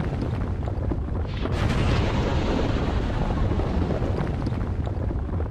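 Explosion sound effect: a long, continuous low rumble with crackling through it.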